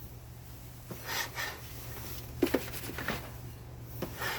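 Plastic parts of a Neato Botvac robot vacuum being handled and fitted back together: scattered clicks and light knocks with some rubbing, the sharpest a quick double knock about two and a half seconds in, over a steady low hum.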